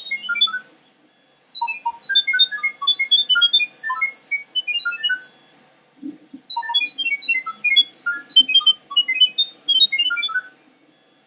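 A phone speaker playing the IP camera app's sound-wave pairing signal: rapid strings of short beeps at jumbled high pitches, in bursts of about four seconds with brief pauses between. The signal passes the Wi-Fi setup to the camera by sound.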